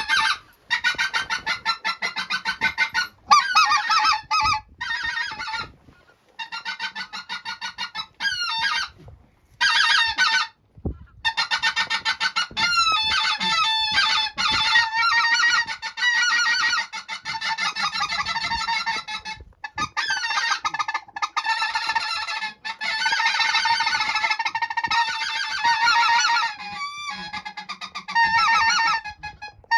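A large flock of geese honking, many short overlapping calls in a continuous clamour with a few sudden breaks.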